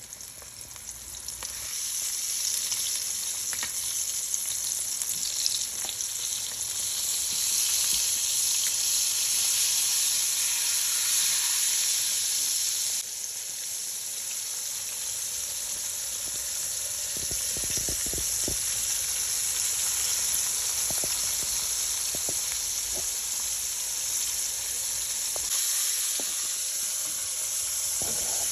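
Flour-dredged whole fish frying in hot oil in a pan: a steady, crackling sizzle, with a few light knocks in the middle. It grows louder about two seconds in and eases slightly about halfway.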